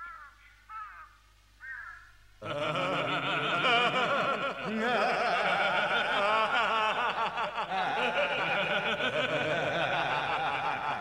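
A few short, faint falling cries, then about two and a half seconds in a sudden dense chorus of many overlapping voices laughing, a mocking cartoon laughter effect.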